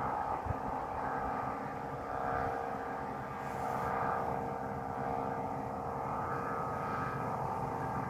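Vietnamese humming kites droning in strong wind: a steady drone of several close tones from the hummers slung beneath the kites, swelling a little and easing. An uneven low rumble of wind runs under it.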